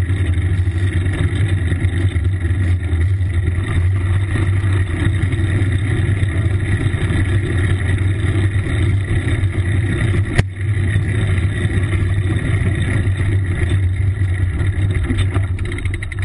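Steady rush of wind and rolling tyre noise on a camera mounted on a moving bicycle, a loud constant rumble. A single sharp knock about ten seconds in.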